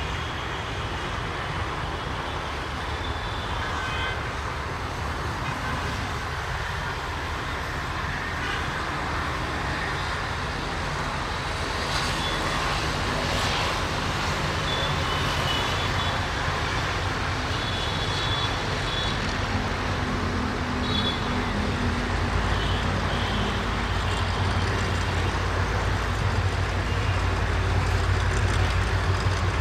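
EMD GM B12 diesel locomotive running as it approaches, hauling a container freight train. Its low engine drone grows steadily louder and deepens noticeably over the last several seconds.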